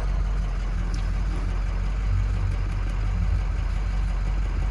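Ford 6.0 L Power Stroke V8 turbo-diesel idling with a steady low rumble while misfiring on cylinder 5, enough to make the truck shake; the owner puts it down to a lack of compression.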